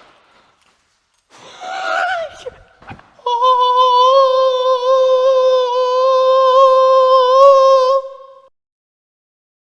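A voice singing one long held note, loud and steady with a slight wobble, lasting about five seconds. A brief, noisier vocal-like sound comes just before it.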